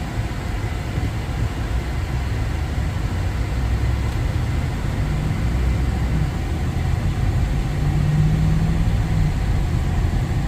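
Heavy vehicle engine running with a steady low rumble that grows slightly louder. A humming tone rises out of it about halfway through and again, stronger, near the end.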